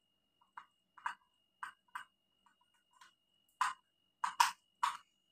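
Plastic spoon tapping and scraping against a small plastic tub while scooping boiled chicken into a glass bowl: a string of light, irregular clicks, the loudest few in the last couple of seconds.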